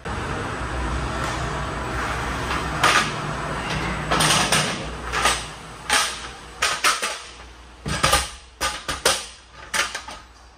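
Pallet-loading work: a steady low hum, then a run of sharp knocks and clatters starting about three seconds in.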